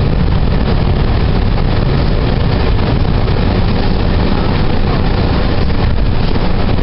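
Light rail train in motion, heard from inside the car: a steady low rumble.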